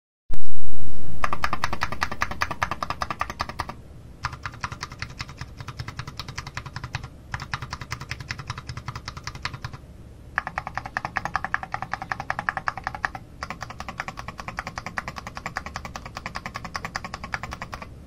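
Fast typing on a mechanical keyboard with vintage Alps Salmon switches and Apple Extended Keyboard II keycaps: dense rapid key clicks in five runs separated by short pauses. A loud low thud at the very start dies away over the first couple of seconds.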